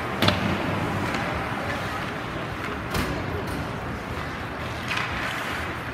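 Ice hockey arena sound during live play: a steady wash of skates on ice and background voices, broken by three sharp clacks of sticks and puck.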